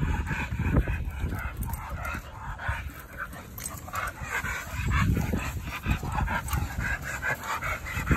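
Dogs moving and making sounds close to the microphone, with irregular low thumps and rumbles.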